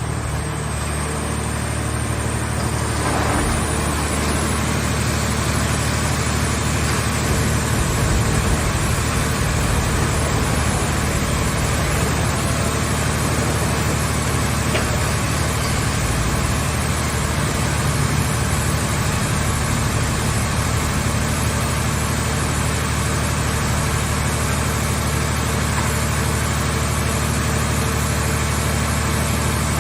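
Engine of a hydraulic scrap car baler running steadily with an even low drone.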